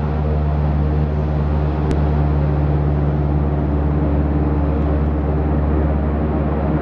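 A floatplane's propeller engine running at high power as the plane takes off from the water, a steady low drone.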